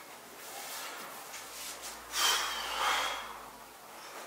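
A man breathing forcefully as he exerts himself, with two loud breaths about two and three seconds in.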